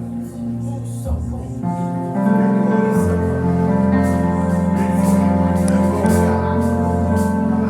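Church keyboard music playing held chords over a low bass note, swelling louder about two seconds in.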